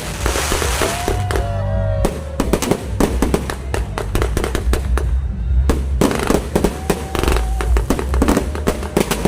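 Aerial fireworks going off in rapid succession: many sharp bangs and crackles, with a hissing rush in the first second and gliding whistles among them.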